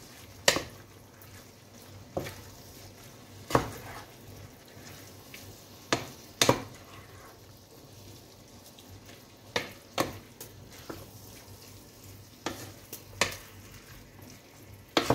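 Wooden spatula stirring diced chicken, peppers and corn in a frying pan, knocking against the pan about a dozen times at irregular intervals over a faint steady sizzle of frying.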